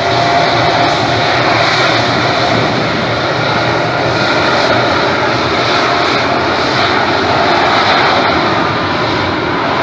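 Jet airliner's engines running loud and steady close by: a dense rush of noise with faint whining tones laid over it.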